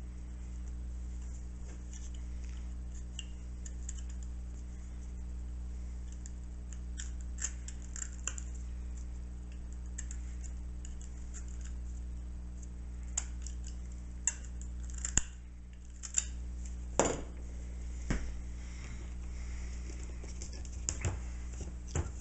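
Scattered small clicks and taps of small wooden pieces and hand tools being handled on a tabletop, sharpest in a few ticks in the second half, over a steady low hum.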